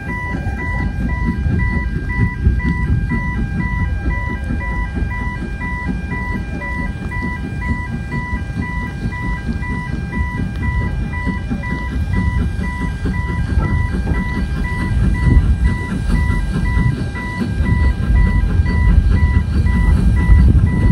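Road crossing warning alarm sounding short beeps over and over in two alternating pitches, over a heavy low rumble that grows louder near the end.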